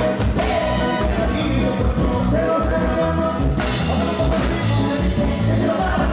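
Latin dance music with a steady beat, in a salsa-like style, played loud.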